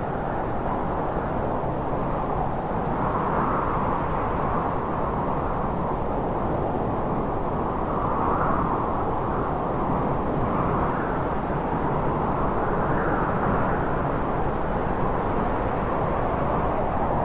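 Wind sound effect: a steady, even rush of wind that swells in gusts every second or two.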